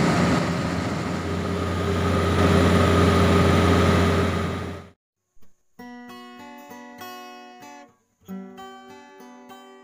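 Yanmar YH 850 combine harvester's engine running steadily while the machine is driven, cut off abruptly about halfway. A short plucked-guitar intro tune follows.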